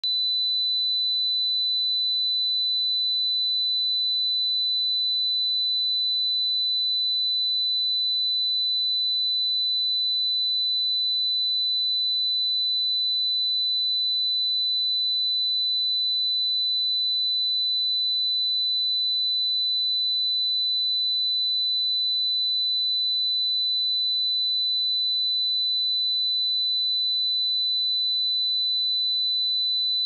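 A steady, unbroken 3997 Hz sine-wave test tone: a single pure high-pitched note at constant level, used to check speakers or headphones.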